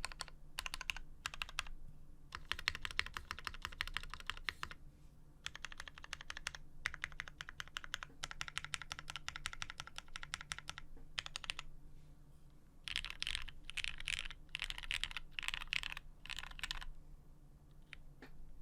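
Typing on a Geonworks F1-8x mechanical keyboard with retooled, lubed and filmed Cherry MX Black linear switches and GMK keycaps: fast runs of keystrokes in bursts of a few seconds with short pauses between them. The typing stops about a second and a half before the end.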